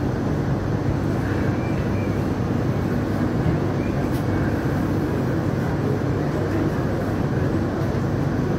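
Hong Kong Light Rail Phase III light-rail train running, a steady low rumble of wheels and motors with no distinct events.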